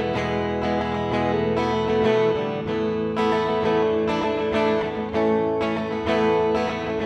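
Background music with guitar, new chords struck about once a second.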